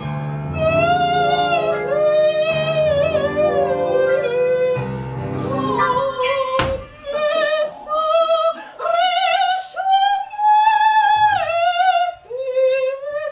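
A woman singing in operatic style with a wide vibrato, accompanied by piano chords; about five seconds in the piano stops, a sharp thump follows a second and a half later, and she goes on singing alone in high, held notes with short breaks.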